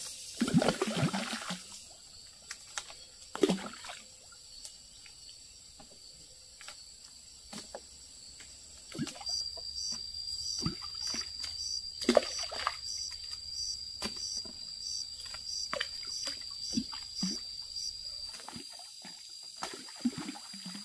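Water splashing and dribbling, with scattered knocks. About halfway through, a steady high-pitched tone with a regular pulsing begins and carries on.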